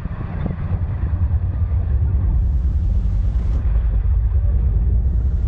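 Wind buffeting an outdoor microphone: a loud, uneven low rumble, with a brief hiss about halfway through.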